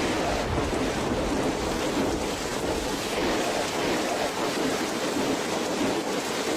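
Steady rush of moving water, an even hiss with no distinct splashes or knocks.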